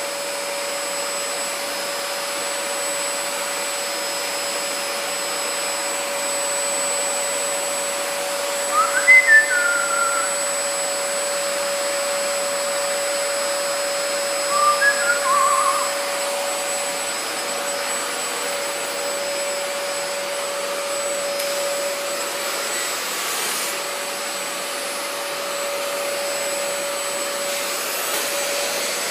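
Male eclectus parrot whistling twice: a short whistle that rises and then falls about nine seconds in, and a brief few whistled notes around fifteen seconds. Underneath runs a steady mechanical hum with a constant tone.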